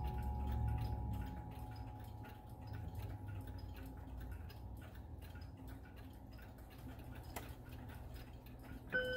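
Howard Miller triple chime mantel clock movement ticking steadily, while the last chime tones ring away over the first couple of seconds. Near the end a single chime note strikes, the first note of the hour chime.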